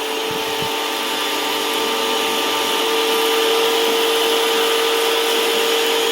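Sun Joe SPX2004 electric pressure washer running with the trigger held: a steady motor-and-pump hum over the hiss of water spraying from the wand with no nozzle fitted.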